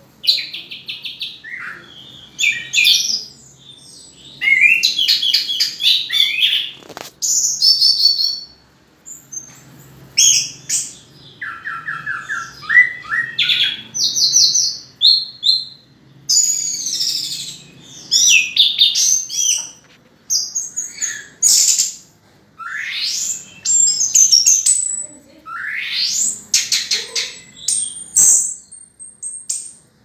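Orange-headed thrush singing a long, varied song of quick trills and rising and falling whistled phrases, broken by short pauses.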